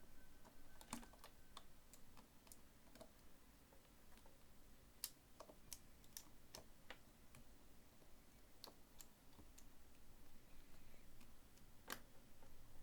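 Faint, scattered clicks and taps of small parts and tools being handled on an iPhone 4's opened internals, about a dozen irregular clicks with the sharpest near the end.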